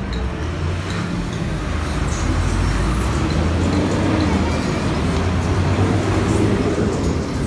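Street traffic with a large vehicle passing: a low engine rumble and road noise that swells about two seconds in and stays loud.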